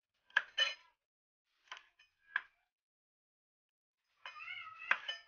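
Kitchen knife cutting water spinach (kangkong) stems on a plastic cutting board: two quick chops, two more spaced apart, then a longer cut ending in a sharp knock of the blade on the board near the end.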